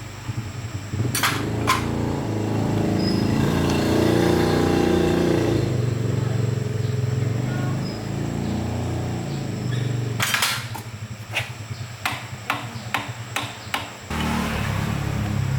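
Detech Win 100 motorcycle's small single-cylinder engine running, revving up a couple of seconds in and settling back. A series of sharp knocks comes about ten seconds in, and the engine runs steadily again near the end.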